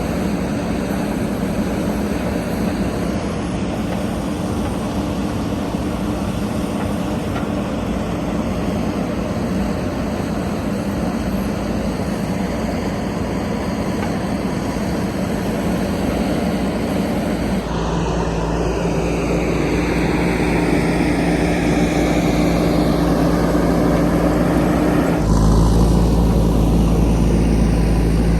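Diesel engine of a JCB 3DX backhoe loader running steadily as the machine drives. The engine note changes about 18 seconds in and again about 25 seconds in, growing louder and heavier near the end.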